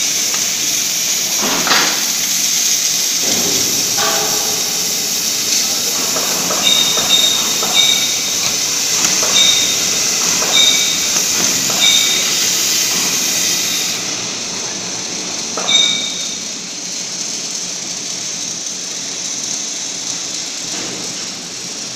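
Portable CNC plasma cutter's torch cutting steel plate: a steady, loud hiss of the plasma arc and compressed air. The highest part of the hiss cuts off about two-thirds of the way through as the cut ends, leaving a softer air hiss. Short high beeps sound several times during the cut.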